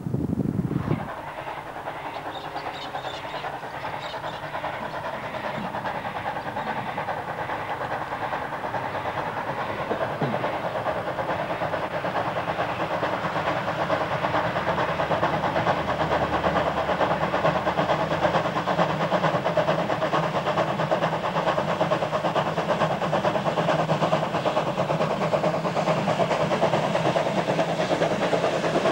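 Queensland Rail C17 class steam locomotive working toward and past the microphone with its train of wagons. The running noise and steam hiss grow steadily louder as it approaches. Wind buffeting on the microphone cuts off about a second in.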